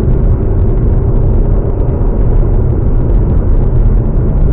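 Ford Mustang cruising along a road: a loud, steady rumble of engine, tyre and wind noise with no sudden changes.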